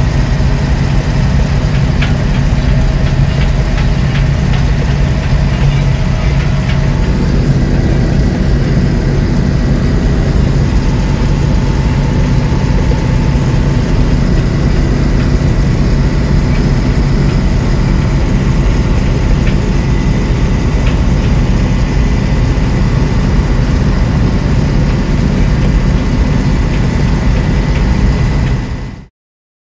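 Diesel engine of a Kato Mitsubishi mobile crane running steadily under way, heard from inside the cab with light rattles. Its note shifts about seven seconds in, and the sound cuts off shortly before the end.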